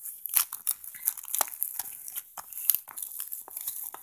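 Plastic shrink wrap on a Blu-ray case crinkling and crackling as it is picked at and torn open: a quick, irregular run of sharp crackles.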